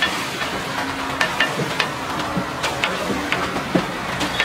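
Egg batter sizzling as it is ladled onto a hot flat iron griddle for omelettes, with repeated sharp clinks of a steel ladle against the steel mug and griddle.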